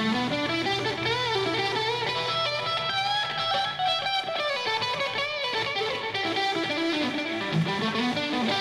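Live band music led by an electric guitar playing a lead line of held notes that slide and bend, with vibrato.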